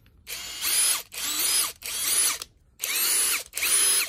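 Brushless 18 V cordless impact driver, a Chinese-made copy of the Makita 173, run free with no load in five short trigger pulls. Each burst spins up with a rising whine and winds down with a falling one, with short quiet gaps between them.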